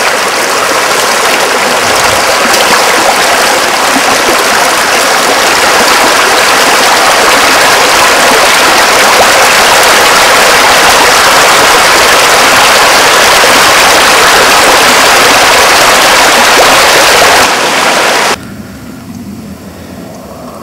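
Rushing stream water, a loud, steady hiss close to the microphone. About eighteen seconds in it drops off sharply to a much quieter flow.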